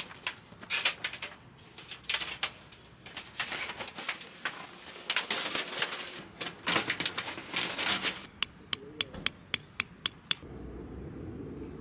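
Camping gear being handled: irregular rustling, knocks and clatter. Then comes a rapid run of about a dozen sharp clicks, roughly six a second. Near the end this gives way abruptly to a steady low rumble.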